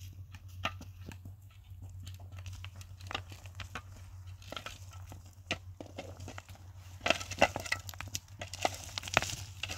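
Scattered knocks and clicks over a steady low hum, coming thicker and louder in the last few seconds.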